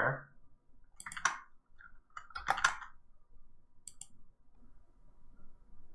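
A few faint computer mouse clicks, spaced out singly: about a second in, around two and a half seconds in, and again near four seconds in.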